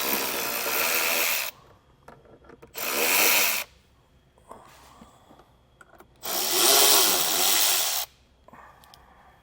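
Cordless drill with a 7 mm socket spinning out screws, in three runs of one to two seconds each, the motor speed dipping and rising as it goes.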